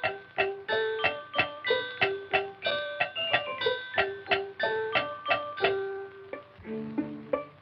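Instrumental music from an early cartoon soundtrack: a lively tune of short, quickly fading notes, about three a second, giving way to lower held notes near the end.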